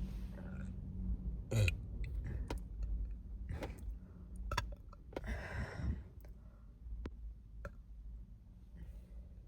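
A girl burping on command, the burps raised by carbonated sparkling water: a few short burps, the loudest about one and a half seconds in, and a longer airy one around five to six seconds in.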